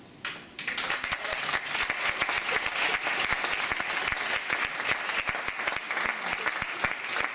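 Audience applause breaking out about half a second in, right after the music ends, and quickly filling into steady, dense clapping.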